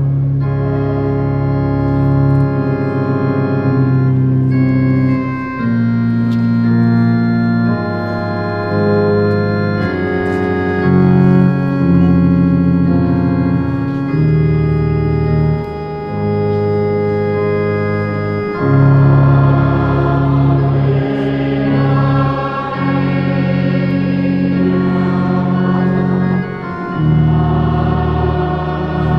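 Church organ playing slow, sustained chords, the bass moving from one held note to the next.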